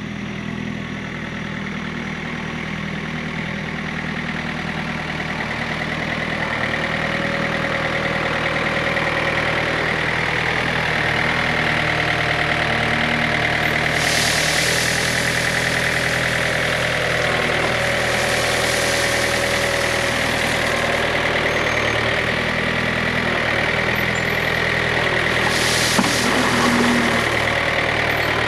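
John Deere 110 tractor-loader-backhoe's three-cylinder diesel engine running steadily under throttle, with a steady high whine above it, growing louder over the first several seconds. Three short rushing, hissing noises come in over it in the second half.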